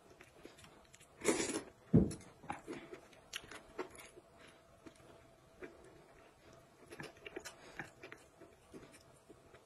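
Close-up eating sounds: a loud slurp of noodles about a second in, a sharp thump just after, then chewing and small clicks of chopsticks against the bowl.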